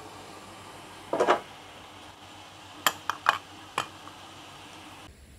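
Stainless steel lid on a wok clinking: a short scrape about a second in, then four sharp metallic clinks close together between three and four seconds in. Under them is a faint steady hiss from the covered, simmering crab curry, which cuts off near the end.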